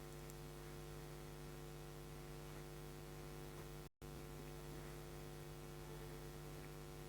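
Faint, steady electrical mains hum of evenly spaced tones, with no clicks or other events; it cuts out for an instant about four seconds in.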